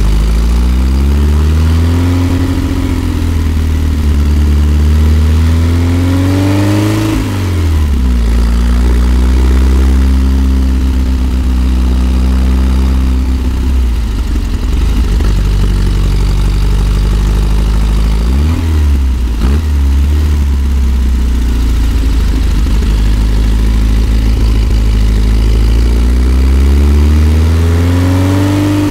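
1964 Volkswagen Type 2 Microbus's air-cooled flat-four engine pulling uphill, its note rising and falling with the revs and dropping sharply twice, about seven and nineteen seconds in, then climbing again near the end.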